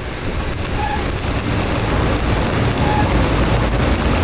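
Road traffic at a busy intersection: a steady noise of passing cars, growing slightly louder.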